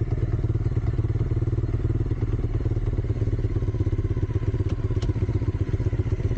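Small youth dirt bike engine running steadily at low revs, with a fast, even putter that neither rises nor falls.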